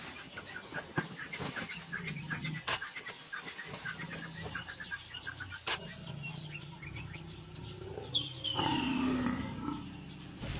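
Big cat growling and snarling. The loudest call comes about eight seconds in and slides down in pitch for a second or so. Rapid chirping sounds through the first half.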